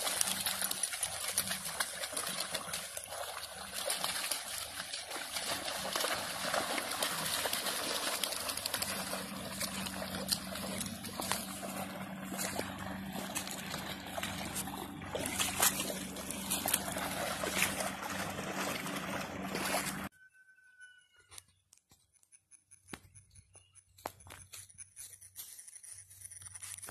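Hound puppies wading and splashing through a shallow muddy pond: continuous sloshing water with many small splashes. About twenty seconds in, it cuts off abruptly to a much quieter stretch with only a few faint ticks.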